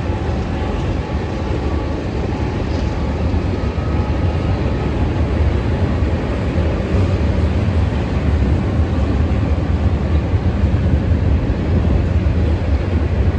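CSX freight train rolling past, a steady loud rumble of the cars' wheels on the rails.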